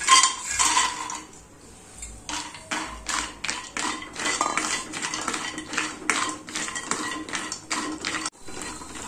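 Cashew nuts tipped from a steel bowl clattering into a non-stick kadai of hot ghee, then a spatula knocking and scraping against the pan again and again as the cashews are stirred to fry.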